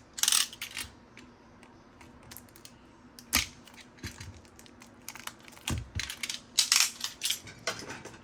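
A box of trading cards and its packaging being handled and opened: several short bursts of rustling and crinkling, with a dull thump about six seconds in.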